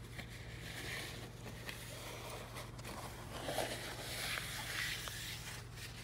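A shop rag rubbing and wiping over the painted housing of a Detroit Diesel 8V92 Roots blower, with soft rustling and a few light clicks over a steady low hum.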